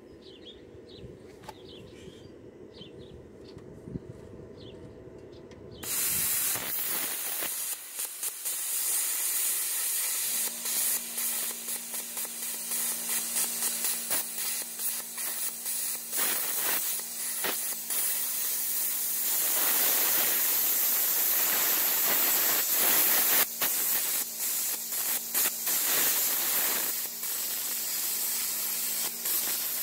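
Budget plasma cutter cutting through a steel car-frame bracket. About six seconds in the arc strikes with a sudden loud, steady hiss of air and arc, full of crackle. From about ten seconds a steady low hum runs underneath, breaking off now and then.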